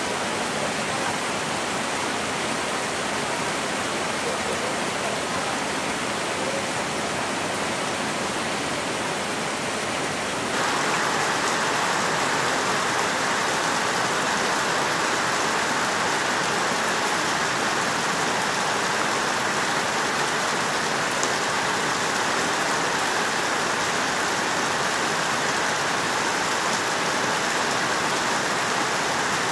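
Heavy rain falling steadily. About a third of the way in it changes suddenly to a louder, closer splashing: rainwater pouring down in a stream onto stones and a puddle, with rain around it.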